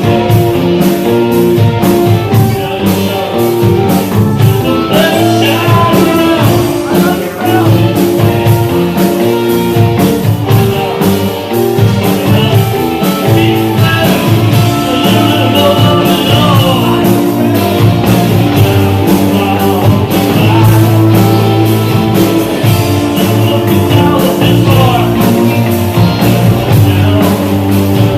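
Rock and roll band playing a song: electric guitars and a drum kit keeping a steady beat, with a voice singing over them.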